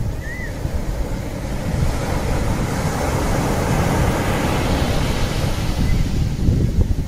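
Ocean surf: waves washing and breaking in a steady rush of water, swelling louder in the middle as a wave comes in.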